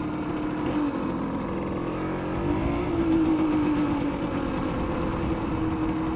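Simson S51 moped's two-stroke single-cylinder engine, with a 60 cc cylinder, running under way and heard onboard. The engine note dips about a second in, climbs again around three seconds in, then holds steady.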